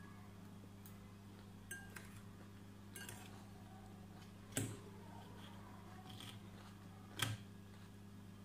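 Metal fork clinking and scraping against a glass salad bowl while picking up vegetable pieces: a few short sharp clinks, the two loudest about four and a half and seven seconds in, over a steady low hum.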